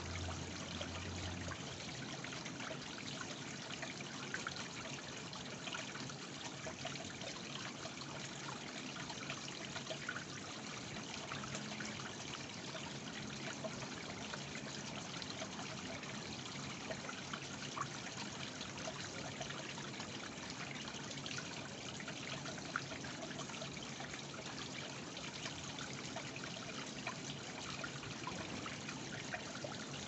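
Small rock-built cascade trickling and splashing steadily into a pond.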